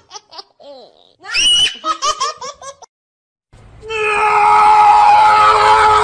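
High-pitched laughter in quick rapid bursts, heard twice. After a short silent break comes a louder, long, high-pitched held cry over background noise.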